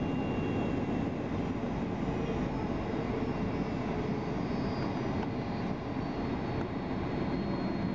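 Jet airliner's engines running at low taxi power, heard from inside the passenger cabin as the plane lines up on the runway for takeoff: a steady low hum with a faint high whine above it.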